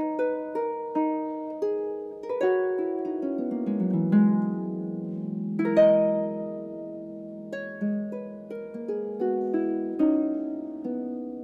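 Solo harp playing plucked single notes and chords that ring on and die away, with a quick falling run about two and a half seconds in and a loud chord near the six-second mark.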